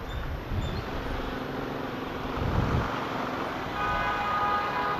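Motorcycle riding through city traffic: the engine runs under a steady rumble of wind and road noise on the rider's camera microphone. A steady pitched tone from another vehicle in the traffic joins about four seconds in.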